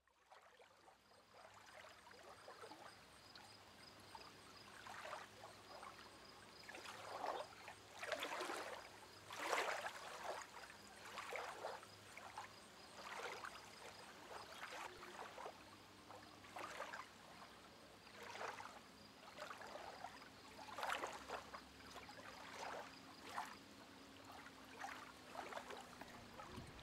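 Water lapping, with a soft slosh every second or two, faint, over a faint steady hum.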